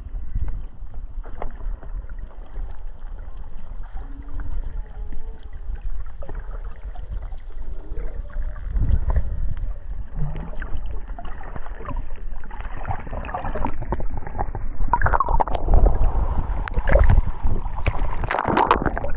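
Muffled underwater water noise with a steady low rush and scattered bubbling clicks, and a few faint gliding tones in the first half. It grows louder and splashier over the last several seconds, as water churns around the camera.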